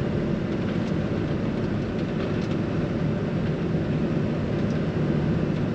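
Steady engine, tyre and road noise inside the cabin of a vehicle driving along a paved road at an even speed.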